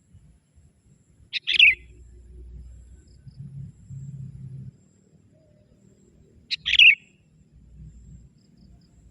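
Young sooty-headed bulbul (kutilang) giving two short, loud calls about five seconds apart, one about a second and a half in and one near the seven-second mark. It is a decoy bird calling to challenge rival wild bulbuls.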